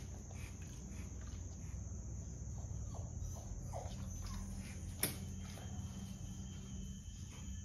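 Kittens mewing faintly a few times, short falling calls, over a steady low hum, with one sharp click about five seconds in.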